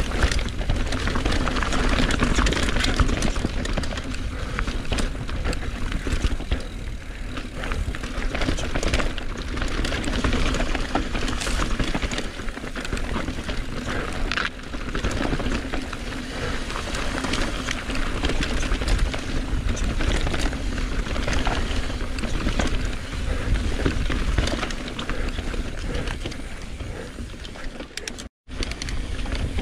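Enduro mountain bike riding down a rough trail, heard from a camera mounted on the rider or bike: steady tyre and wind rumble with many rattles and knocks over the rough ground. The sound cuts out for a moment near the end.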